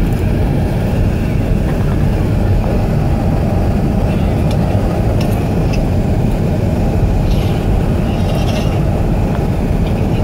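Steady low rumble of tyre and engine noise inside a car moving at road speed.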